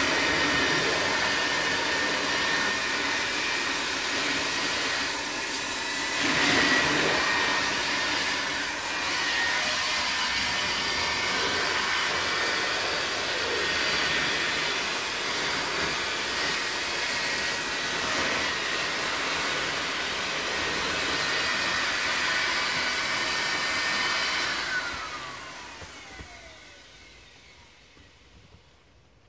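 Electric air pump of an inflatable hot tub running with a steady rushing hum, then switched off about 25 seconds in and spinning down with a falling whine.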